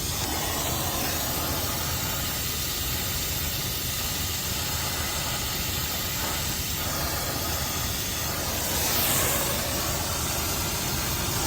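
Brazing torch flame hissing steadily while heating the pipe joint at a refrigeration filter drier's inlet, swelling briefly about nine seconds in.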